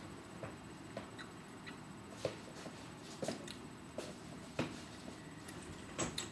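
Faint, irregular small clicks and taps from hands and mouth while eating, about a dozen scattered through, over quiet room noise.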